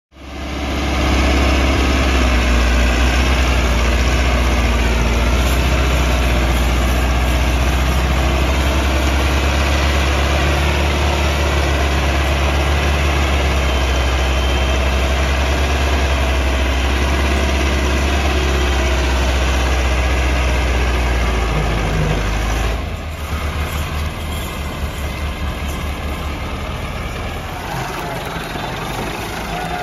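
Massey Ferguson 385's four-cylinder diesel engine running steadily under load as the tractor pulls a heavily loaded sugarcane trolley. About 23 seconds in the engine eases off and runs quieter, with a slower, uneven beat.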